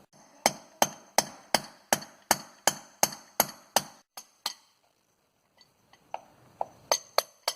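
Hammer striking a wood chisel, a steady run of about three blows a second, then a few lighter, scattered taps: chiseling the door jamb's strike-plate mortise deeper to lower the plate about an eighth of an inch.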